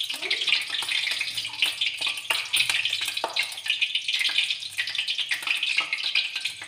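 Hot oil sizzling in a kadhai on a lit gas burner: a steady hiss with many fine, irregular crackles.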